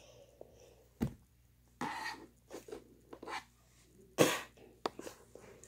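A boy coughing several times in short bursts, the loudest about four seconds in, with a single knock about a second in.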